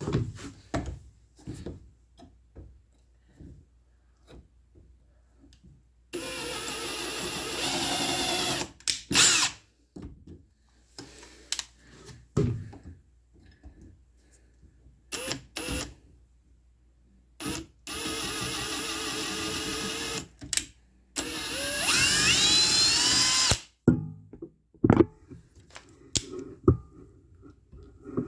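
Ryobi One+ HP cordless hammer drill with a 3/16 spade bit, boring pilot holes in three runs of about two to three seconds each. The motor's pitch rises as it speeds up in the last run. Short knocks and clicks from handling the drill and bit fall between the runs.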